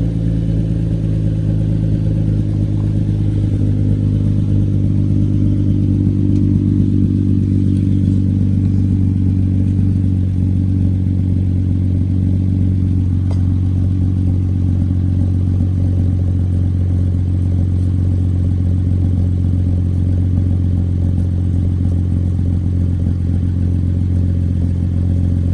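Hyundai Genesis Coupe with an ISR race exhaust idling steadily, a loud, even low exhaust drone, run to check the freshly resealed exhaust joint for a leak.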